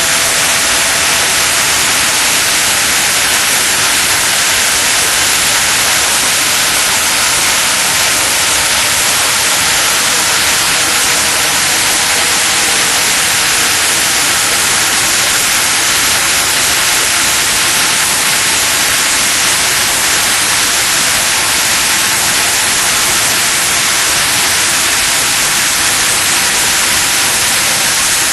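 Makino D500 5-axis vertical machining center running its NAS cone cutting test: a loud, steady, unbroken hiss with faint steady tones underneath.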